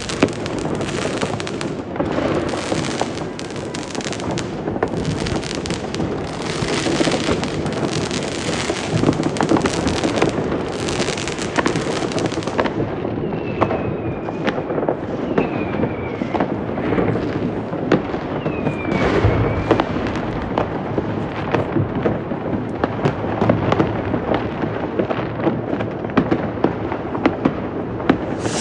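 Dense New Year's Eve fireworks and firecrackers: a continuous crackle of bangs and pops. About halfway through, a few short falling whistles cut through the bangs.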